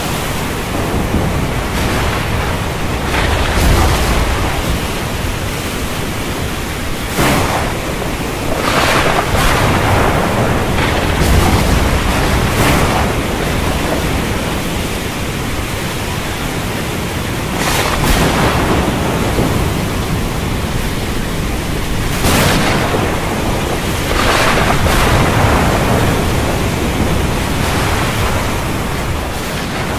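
Thunderstorm ambience: a steady rush of heavy rain with two low rolls of thunder and several louder surges of noise.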